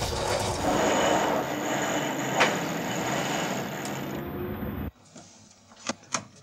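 Red in-mast mainsail furling line being hauled around a sheet winch: the winch's pawls click and the line rasps as the mainsail rolls into the mast, with a sharp click about two and a half seconds in. The noise stops abruptly about five seconds in, leaving a couple of faint clicks.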